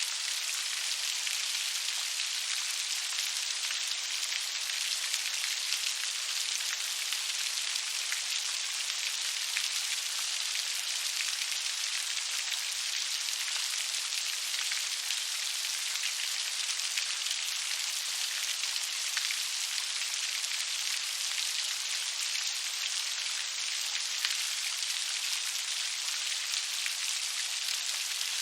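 Steady rain falling, a dense even hiss of many small drops pattering on a surface, with no thunder or low rumble.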